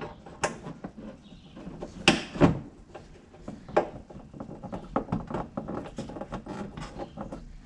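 Scattered clicks, taps and a few louder knocks as a bolt is started by hand into a plastic wheel-well fender liner, fingers working the fastener against the liner.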